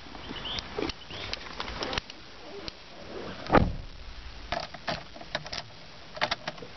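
Scattered clicks, knocks and rubs from a handheld camera being moved about, with one louder low rub about three and a half seconds in.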